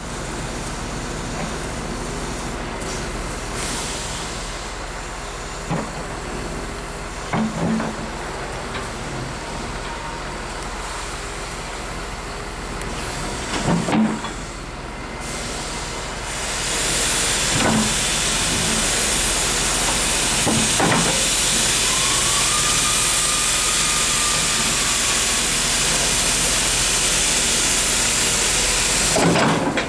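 Hyundai R140W wheeled excavator's diesel engine running steadily, with several sharp knocks spread through. About halfway through, a loud steady hiss joins in and stays.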